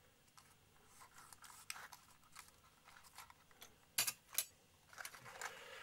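Masking tape being pressed and rubbed down onto a hollow plastic model fuselage, faint crinkling and scratching, with two sharp clicks of tools on the workbench about four seconds in.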